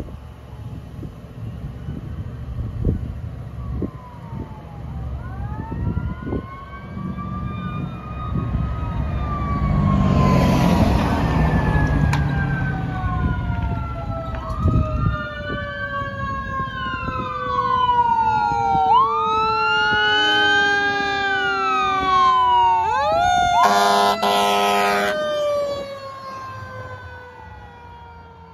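Fire engine sirens wailing up and down as the apparatus approaches and passes, their pitch sliding lower as it goes by and fading near the end. A truck rushes past about ten seconds in, and a short air horn blast sounds a few seconds before the end.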